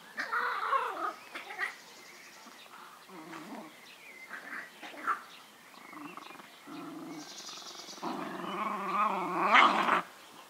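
Jack Russell terrier puppy and adult dog growling as they play-fight, in short spells, with the longest and loudest near the end.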